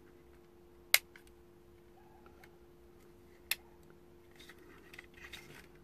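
Two sharp plastic clicks about two and a half seconds apart, the first the louder, as the tabs of a steering-wheel airbag clock spring housing are pried with tweezers. Faint scraping of plastic follows near the end.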